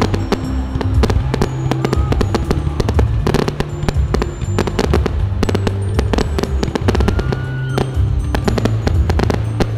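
Fireworks display: dense, irregular bangs and crackling, with a few short whistles, over loud music with a heavy bass line.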